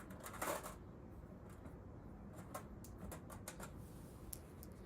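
Faint handling noise of small metal parts being picked up and set down: scattered light clicks, with a brief louder rustle about half a second in.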